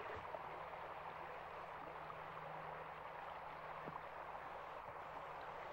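Small stream running, a faint, steady rush of water.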